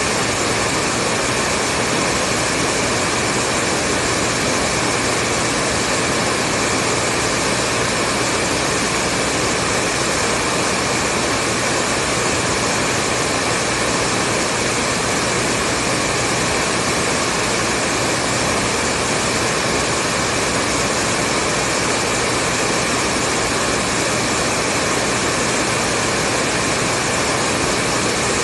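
Hair dryer running continuously on a steady setting: an even rush of blown air with a faint motor hum, unchanging in pitch and level.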